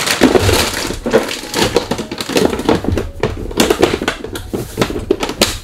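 Clear plastic bag of black oil sunflower seeds crinkling and rustling as it is handled, a loud dense crackle that cuts off sharply near the end.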